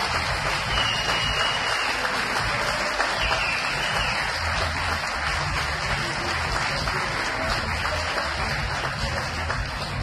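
An audience applauding steadily at the close of a talk, with a few short whistles in the first seconds, over a low bass throb.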